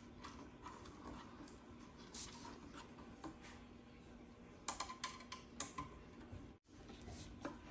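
Faint scattered clicks and taps of parts and hardware being handled and fitted while assembling a flat-pack bench, with a quick run of sharper clicks about five seconds in.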